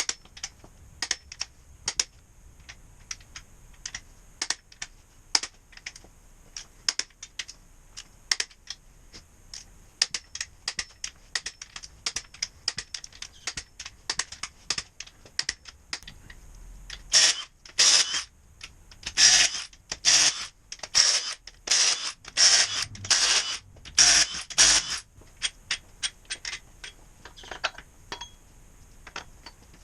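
Sharp clicks and taps of hand tools and metal engine parts being handled, then a run of about eight louder rasping strokes, each under half a second, like a ratchet being worked.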